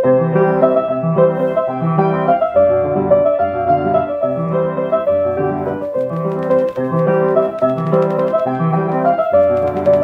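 Solo piano playing a calm piece: a melody over an even, repeating pattern of lower chords.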